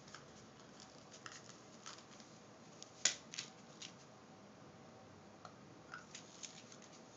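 Scattered light clicks and rustles from small items being handled, with one sharper click about three seconds in.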